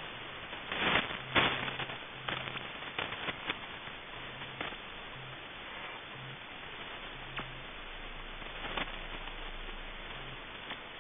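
Shortwave radio receiver audio tuned to 5000 kHz: steady static hiss with sharp crackling clicks, a cluster of the loudest about a second in, and a faint low tone that switches on and off in short pieces.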